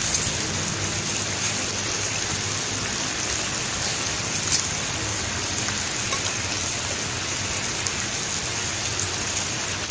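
Pork slices and hotdogs sizzling on the plate of an electric grill, a steady frying crackle with an occasional sharper pop.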